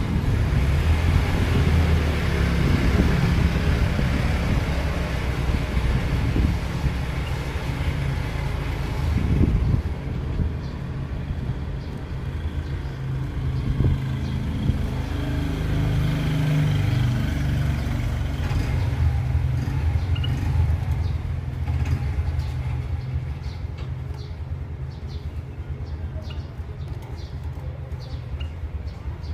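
A steady low mechanical rumble, such as a vehicle engine or passing traffic makes, with faint short bird chirps in the second half.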